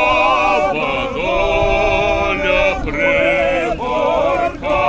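A group of voices singing a song together, unaccompanied, in long held notes with short breaks between phrases.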